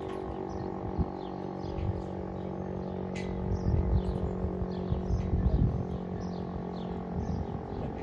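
Fire siren sounding a steady, unchanging chord of tones, its loudness swelling and easing a little, with birds chirping over it.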